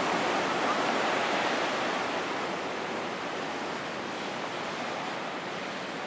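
Ocean surf washing on a beach, a steady wide hiss that eases off a little after about two seconds.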